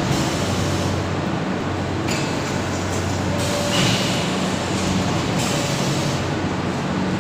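Polystyrene foam plate forming machine line running: a steady mechanical hum with a cycle that repeats about every five seconds, each cycle bringing a brief rise in high-pitched hiss.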